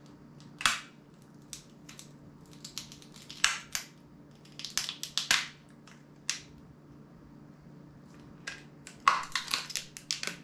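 Sharp clicks and crackles of a phone battery being pried out of its frame with a flat tool, in scattered bursts with a dense run about nine seconds in.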